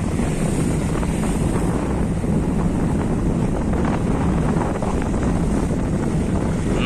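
Wind buffeting the microphone over the steady rush of waves breaking against a steel ship's hull as it rolls in a choppy sea.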